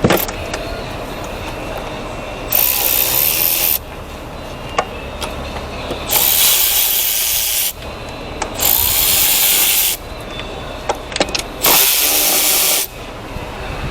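A power tool run in four bursts of a second or so each, with a hissing sound, and light metallic clicks of hand tools between the bursts, during engine disassembly.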